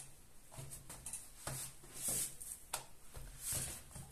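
Soft, irregular swishes and light pats of hands folding and smoothing a thin, oiled sheet of filled katmer dough on a countertop.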